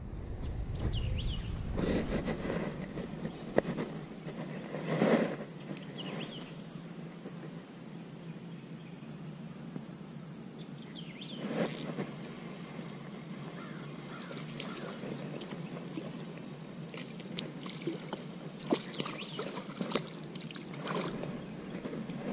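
Steady high-pitched insect trilling, with a few short rustling bursts and scattered clicks from handling a spinning rod and cranking its reel.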